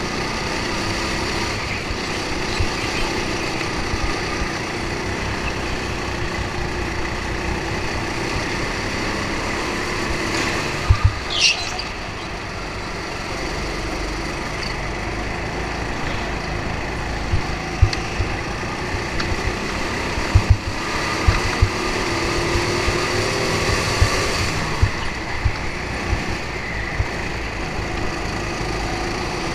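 Rental go-kart's small engine running steadily under racing load, heard on board. It is broken by occasional sharp knocks and a brief high squeal about eleven seconds in.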